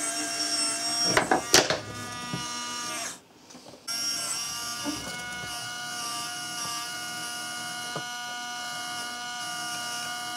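Small electric motor whirring steadily as it drives a plywood automaton's wooden gears and toothed-belt pulley, with a cluster of sharp clicks about a second and a half in. The sound drops away briefly just after three seconds, then the steady whir resumes.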